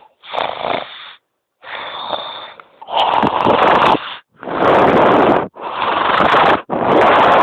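A person snoring loudly, one snore about every second with short gaps between, becoming much louder about three seconds in.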